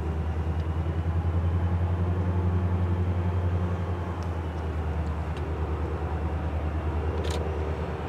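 Steady low rumble of a diesel locomotive engine from an approaching train, swelling slightly a second or two in and then holding.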